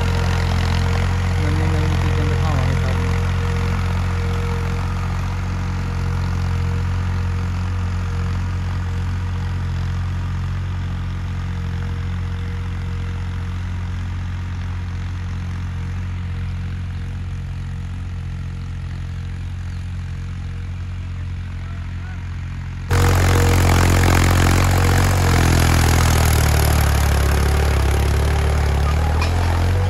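New Holland 3630 tractor's diesel engine running steadily under load as it pulls a disc harrow through stubble, slowly fading as the tractor moves off. About 23 seconds in, the sound jumps suddenly louder and closer, and the engine note dips and then recovers.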